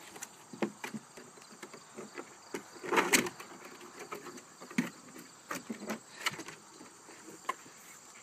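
A puppy's paws and claws knocking and scraping on a plastic children's slide as it climbs the steps. The bumps are scattered and irregular, with a louder cluster about three seconds in, over a faint steady chirr of insects.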